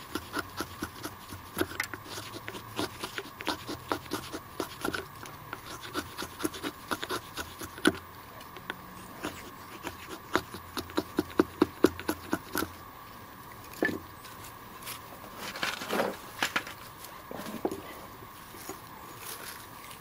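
Knife blade of a Sheffield 12-in-1 hatchet multi-tool shaving curls off a wooden stick: a quick run of short scraping strokes for about the first twelve seconds, then a few scattered handling sounds.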